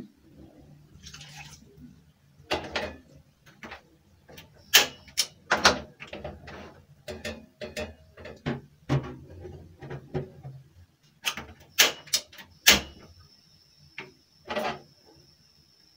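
Kitchen handling at a sink: irregular sharp knocks and clinks of a metal bowl and other items being picked up and set down. A faint steady high tone comes in near the end.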